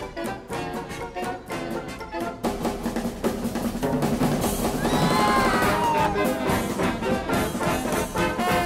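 Background music led by brass, trumpets and trombones, over drums, growing fuller a couple of seconds in, with a sliding note falling in pitch about halfway through.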